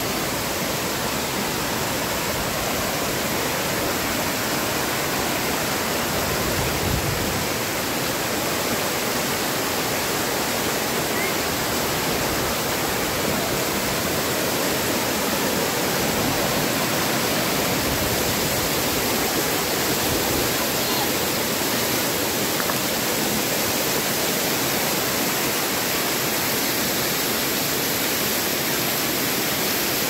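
Water of a rocky waterfall cascading and splashing over boulders and rock slabs, a steady rushing noise.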